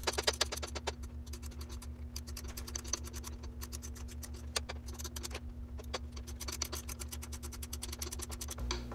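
Ratchet wrench clicking rapidly as an 8 mm bolt on top of a generator's starter is tightened down, in several runs of quick clicks, about ten a second, with short breaks between strokes.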